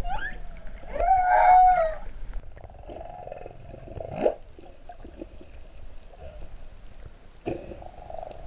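Humpback whale song heard underwater: a quick rising whoop at the start, a held moaning note with overtones about a second in, a rising upsweep about four seconds in, then fainter moans and grunts.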